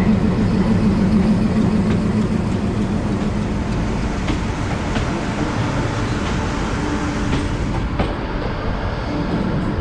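A train rumbling along the rails with a steady low hum, and a few scattered clicks of wheels crossing rail joints.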